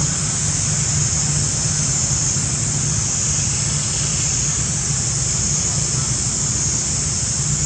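Steady outdoor background noise: a constant high hiss over a low rumble, with no separate sounds standing out.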